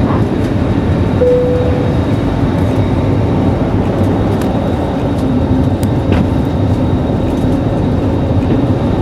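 Airliner cabin noise during the climb just after takeoff: the jet engines and rushing air make a steady, loud, even rumble. A short steady tone sounds about a second in.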